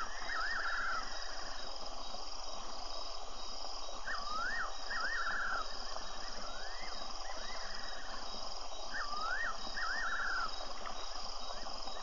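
Fiery-necked nightjar singing its whistled phrase three times: two swooping notes and then a quavering, falling note, with fainter swooping notes after each phrase. A steady chorus of crickets runs underneath.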